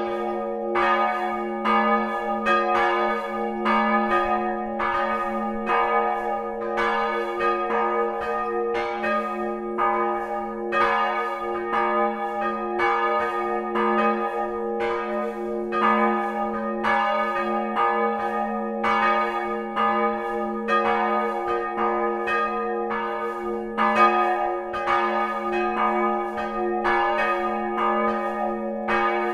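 Church bells ringing, a new strike about every two-thirds of a second over a steady, sustained ringing hum.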